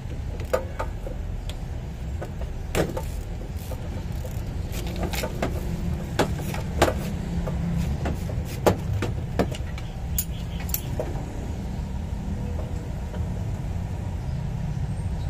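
Irregular metallic clicks and knocks of hand tools on bolts under a car, as the starter motor is unbolted, over a steady low rumble.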